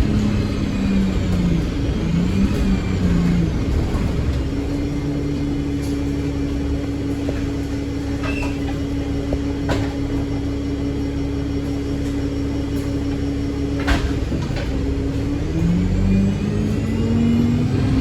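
Bus engine being driven hard. In the first few seconds its revs rise and fall. It then holds steady revs for about ten seconds, with a sharp click near the end of that stretch, and rises again as the bus accelerates.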